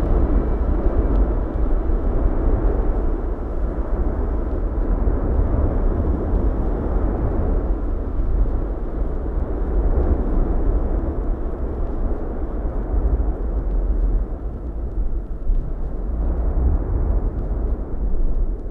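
Cumbre Vieja volcano erupting from several lava-fountaining vents: a steady, deep rumbling noise, heaviest in the low end, without separate bangs.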